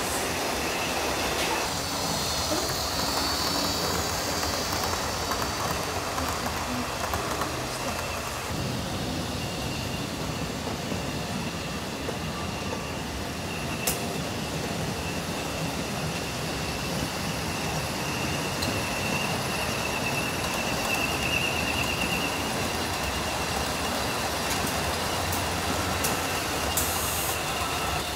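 Model trains running on a large layout: a steady rumble of wheels on track with a thin, high whine running under it. One sharp click about halfway through.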